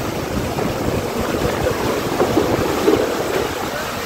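Heavy rain and strong gusting wind, with the wind buffeting the microphone and a steady low rumble.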